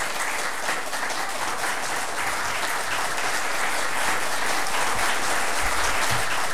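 Congregation applauding: many hands clapping in a steady, dense sound that grows a little louder toward the end.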